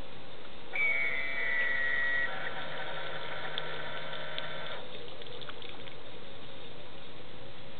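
A mechanical whine over a steady hiss. It starts about a second in, slides slightly down in pitch, and stops about five seconds in.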